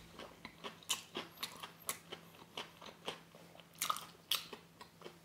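A person chewing a mouthful of crispy battered fried chicken: irregular crunches about every half second.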